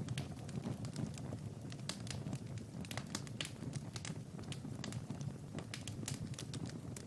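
Wood fire crackling in a fireplace: frequent irregular sharp pops and snaps over a steady low rumble of the burning.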